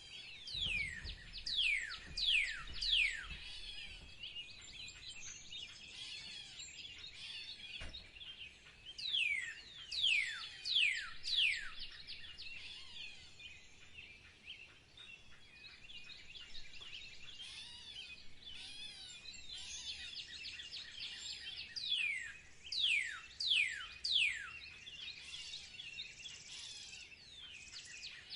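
Birds singing in spring. One bird repeats a phrase of about five clear whistles, each falling steeply in pitch, three times, over steady background chirping from other birds.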